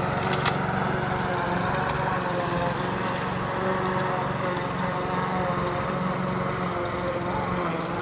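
Walk-behind lawn mower engine running steadily under load as it is pushed along a grass verge, slowly fading as it moves away. A few sharp ticks in the first second.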